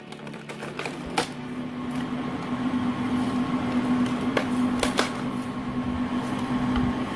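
Homemade screw-cone log splitter running, driven through a truck rear-axle differential: a steady hum that comes up about a second in, with sharp cracks about a second in and three more between four and five seconds as the spinning threaded cone bores into a log and splits it.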